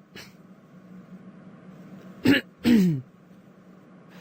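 A Plotagon character's American voice clip: a vocal sound effect in two parts, a short sharp syllable then a longer one falling in pitch, about two seconds in, heard as throat clearing or a cough, over a faint steady hum.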